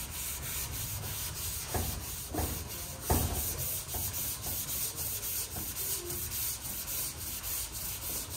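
Long sanding block with 320-grit paper stroking back and forth over a primed car door, a steady scratchy rasp in a quick even rhythm of about three strokes a second, with a few thumps among the strokes, the loudest about three seconds in. It is block sanding through a guide coat to show the panel's low and high spots before paint.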